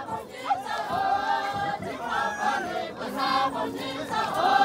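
Group of Naga tribal dancers chanting in unison as they dance, many voices holding notes together in short repeated phrases.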